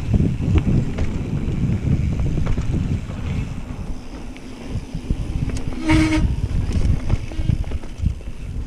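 Mountain bike rolling fast over a dirt singletrack: tyre rumble and the rattle of the bike over roots and bumps, with wind buffeting the microphone. A brief squeal cuts through about six seconds in.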